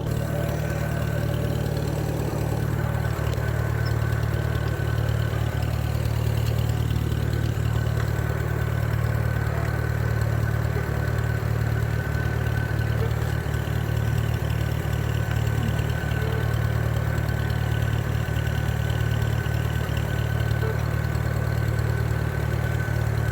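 Freshly rebuilt engine of a Minneapolis-Moline BF tractor running steadily through its muffler, with an even, unchanging note and a faint steady whine above it.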